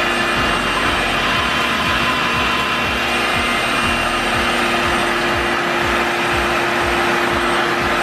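Revair reverse blow dryer running, its vacuum motor giving a loud, steady whine and rush of air as damp hair is drawn into the nozzle, with uneven low fluttering underneath.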